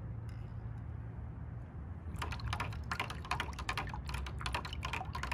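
Metal spoon stirring in a glass jar, clinking and scraping against the glass in quick irregular clicks from about two seconds in, as sugarcane molasses is dissolved in warm water. A low steady hum sits underneath.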